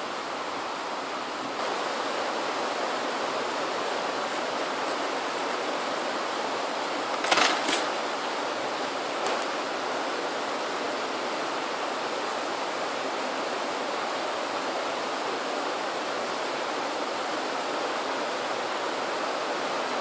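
Steady, even hiss, broken by a brief cluster of sharp clicks about seven seconds in and one fainter click near nine seconds.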